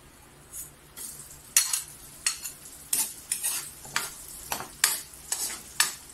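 Metal ladle scraping against a wok as sliced onions and garlic are sautéed in oil: a series of sharp scrapes, roughly two a second, starting about a second and a half in.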